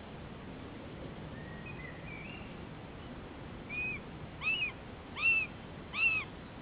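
Common buzzard chick calling: four short, rising-then-falling calls about three-quarters of a second apart, each louder than the last, after a few fainter thin notes.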